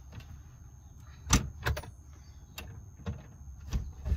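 A floor hatch over a boat engine being worked loose by hand: a few sharp knocks and bumps, the loudest about a second and a half in. The panel is stiff and hard to lift.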